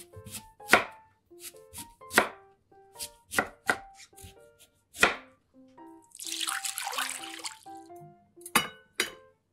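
A chef's knife chopping a peeled sweet potato into chunks on a bamboo cutting board: single sharp knocks on the board, about a second apart. About six seconds in comes a short rush of noise, then two metal clinks as a stainless folding steamer basket goes into the pot. Light background music plays throughout.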